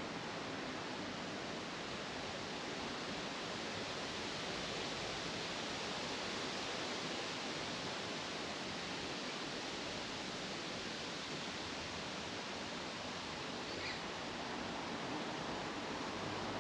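Steady, even outdoor background hiss, with one brief faint high chirp near the end.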